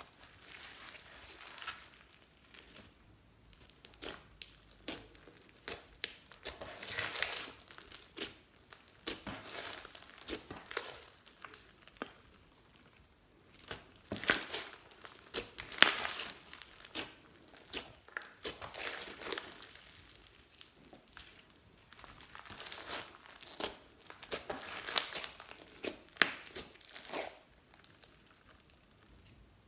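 Hands squeezing, stretching and pulling apart a large lump of glittery red slime with sequins mixed in. It gives irregular bouts of sticky crackling and tearing, with short pauses between.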